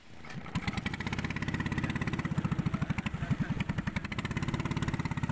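Small boat engine running with a rapid, even beat. It swells over the first second, then holds steady.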